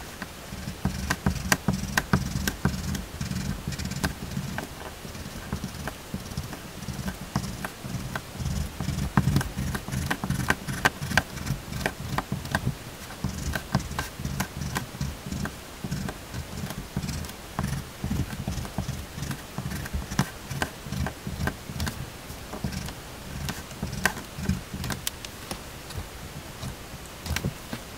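Black pastel crayon making short, quick strokes on paper: a run of irregular taps and scratches, one for each stripe drawn.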